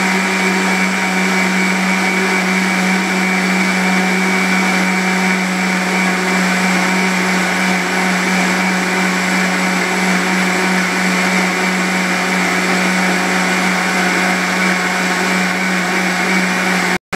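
Electric mixer grinder running steadily at full speed, its stainless-steel jar blending milk, ice cream and strawberries into a milkshake: a constant motor hum with a whirring of liquid that cuts off suddenly at the very end.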